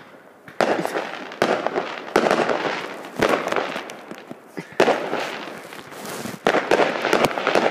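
Fireworks going off in a string of about seven sharp bangs at uneven gaps of about a second, each trailing off in crackling.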